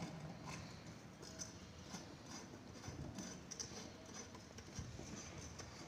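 Faint, irregular clicks and taps of a wrench turning and seating the bolts of a motorcycle engine's right crankcase cover as they are tightened evenly.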